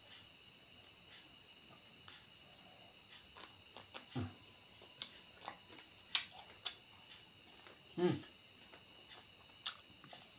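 Crickets chirping steadily in the background, with scattered chewing clicks and smacks from someone eating rice and raw young mango leaves by hand. The sharpest clicks come about six seconds in and near the end, and two short low sounds come about four and eight seconds in.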